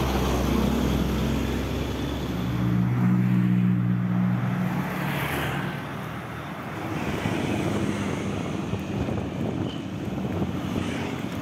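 Road traffic with a heavy vehicle's engine running close by, its low drone strongest in the first half, over wind noise on the microphone.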